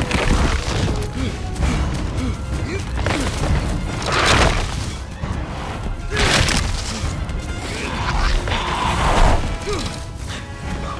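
Film action soundtrack: a music score mixed with crashing impacts, the loudest bursts about three, four and a half, six and a half, and nine seconds in.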